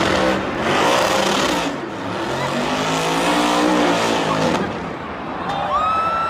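Car engine revving, its pitch rising and falling several times over a noisy hiss.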